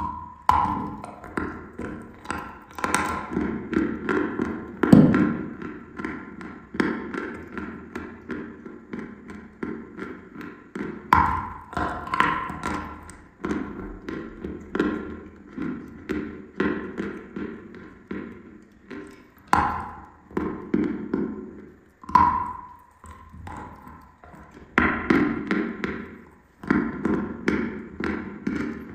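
Close-up crunching of a chunk of dry white chalk being bitten and chewed: a sharp snap as each bite breaks off, about five times, each followed by a quick run of gritty crunches.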